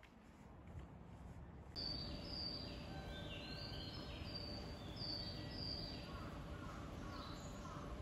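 Faint low background noise, then about two seconds in short, high bird chirps that repeat at regular intervals over a steady hum. In a Japanese station concourse this is typical of the recorded birdsong played near stairs as a guide sound for visually impaired passengers.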